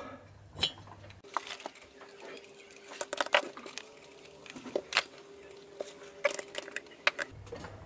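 Scattered light metallic clinks and taps from handling a Super Cub piston on its connecting rod: it is drawn out of the freshly sleeved cylinder and set down on a tray, and the bore is oiled from an oil can.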